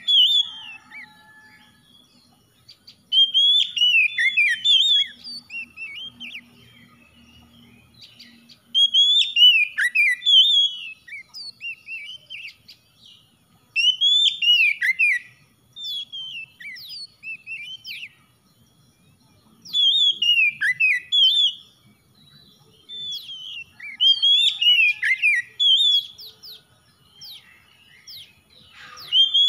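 Male Oriental magpie-robin singing: bouts of loud, clear whistled phrases, each about two seconds long, sliding down and up in pitch. The bouts come about every five seconds, with short quiet gaps between.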